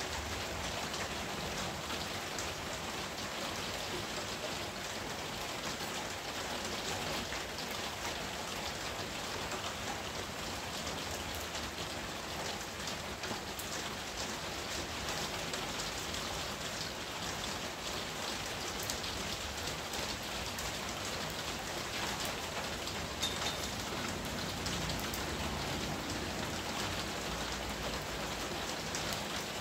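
Steady rain falling on garden foliage and surfaces: an even hiss dotted with many separate drop hits.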